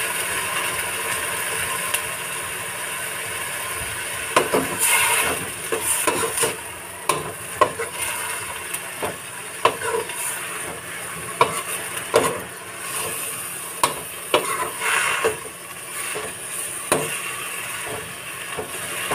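Sweet potato tops sizzling as they are sautéed in a hot aluminium pot over a gas flame. From about four seconds in, a metal spatula stirs them, scraping and clinking against the pot again and again.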